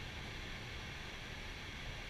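Steady flight-deck noise of an Airbus A320 in flight on approach: an even hiss of airflow and cockpit ventilation with a low rumble underneath.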